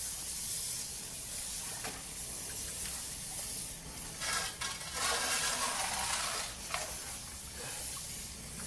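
High-pressure water hose jetting water down a car wash pit drain pipe toward the reclaim pit, flushing it to clear any blockage: a steady hiss of spraying water that swells louder about halfway through.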